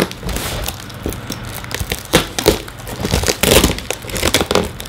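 Plastic stretch wrap on a cardboard box being cut and pulled open by hand: irregular crackling and crinkling, busiest in the second half.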